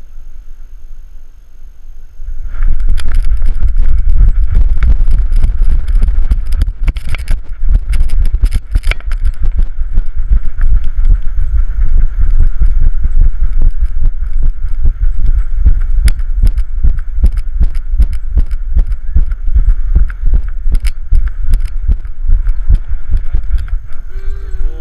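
A dog galloping across grass, heard through a camera strapped to its body: quick thudding footfalls and the camera knocking about over a heavy low rumble. It starts about two and a half seconds in.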